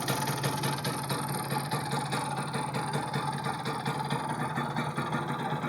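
Kawasaki GTO 125's single-cylinder two-stroke engine idling steadily, with no revving.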